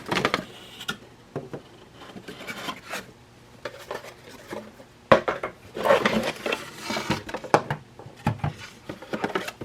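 Packaging and parts being handled while unboxing a drill bit sharpener: rustling of paper, cardboard and plastic with small clicks and clatter of parts, and a sharp knock about five seconds in.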